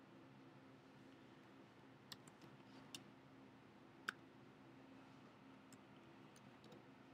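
Faint clicks of a computer mouse or trackpad and keyboard keys: a handful of separate clicks, the loudest about four seconds in, with lighter key taps after it, over a low steady hum.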